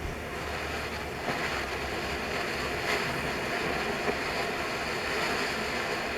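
Ground fireworks fountain hissing steadily as it sprays sparks, with a few faint pops.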